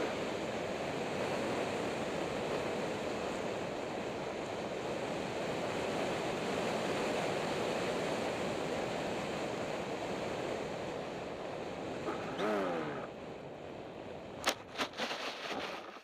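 Air rushing past an RC model plane's onboard camera as it glides with the motor throttled back, a brief electric-motor whine falling in pitch about twelve seconds in. Near the end the plane lands: one sharp knock and a few smaller bumps as it slides to a stop on the grass.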